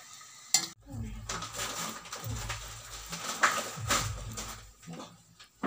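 Indistinct, muffled voices with some clicks and knocks, but no clear words.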